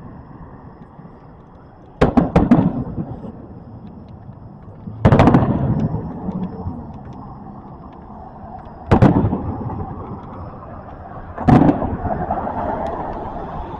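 Fireworks going off: four bursts a few seconds apart, the first a quick cluster of cracks. Each bang is followed by a long rumbling echo that fades out.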